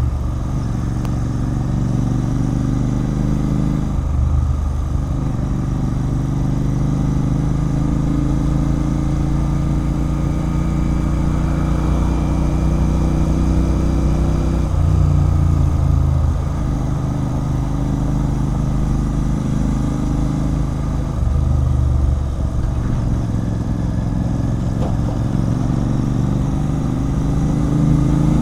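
Royal Enfield Continental GT 650's parallel-twin engine running through an aftermarket Red Rooster Performance exhaust while riding. Revs climb slowly in each gear and drop sharply at gear changes, about four, fifteen and twenty-one seconds in.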